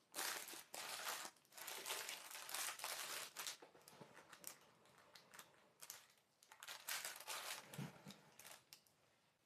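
Baking paper and thin plastic gloves crinkling and rustling as hands press the paper down over soft soap in a mould, in irregular bursts, busiest early on and again near the end. A soft knock comes about eight seconds in.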